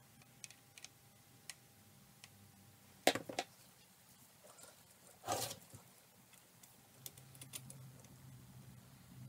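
Handling noises from a camera and a metal adapter plate being fitted to a dial indicator stand: scattered small clicks, a short clatter about three seconds in, and a longer, louder one a little after five seconds.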